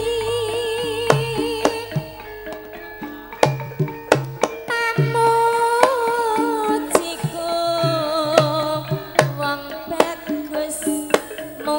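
Javanese gamelan music for a dance: sharp hand-drum (kendang) strokes in an irregular pattern under a wavering melody line with vibrato, sung or played, over a steady low tone.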